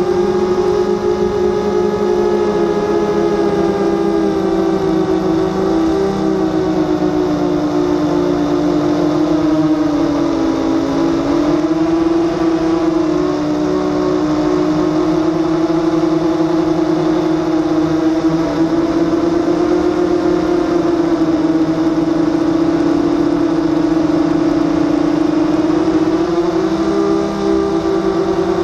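Drone's motors and propellers whining steadily as it flies, heard from its on-board camera. The pitch drifts with throttle, dipping about ten seconds in and rising again near the end.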